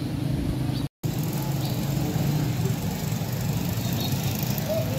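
Wind buffeting the phone's microphone in a rainstorm, a steady low rumble that cuts out for a moment about a second in.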